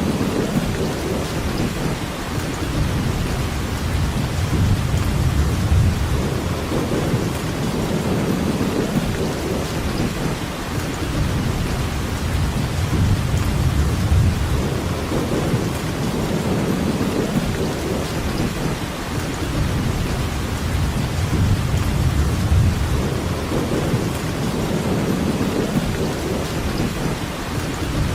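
Steady heavy rainfall, an even hiss, under a deep low rumble that swells and fades every few seconds.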